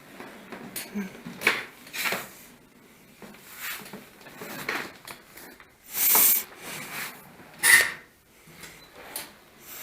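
Irregular scraping, rubbing and knocking of objects being handled, with a louder hissing scrape about six seconds in and a sharp knock just before eight seconds.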